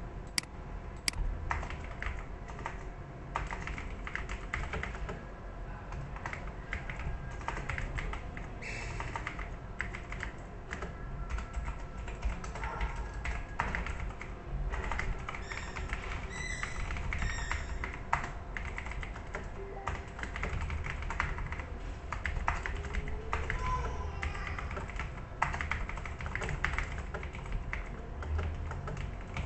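Irregular clicking of typing on a computer keyboard, keys struck in quick uneven runs over a low steady hum.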